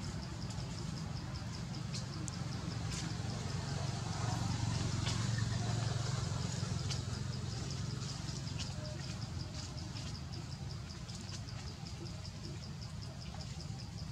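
An insect chirping in a rapid, even pulse, over a low rumble that swells around the middle and then fades, with a few faint clicks.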